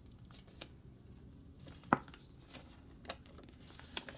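A holographic cash envelope and paper bills rustling and crinkling as money is slipped into the envelope, in short scattered crackles with one sharper snap about two seconds in.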